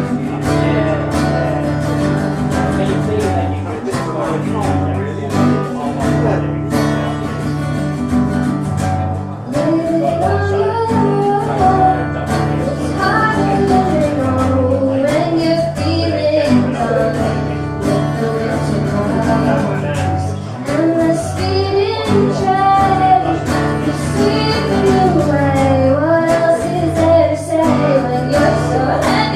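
Live performance of a song: guitar accompaniment with a voice singing the melody. The singing stands out most from about ten seconds in.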